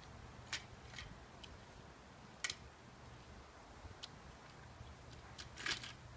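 Faint, scattered clicks and rustles of small toy figures being picked up off the grass and put into a bag: single clicks about half a second, one second and four seconds in, the sharpest about two and a half seconds in, and a short cluster near the end. A low steady hum sits underneath.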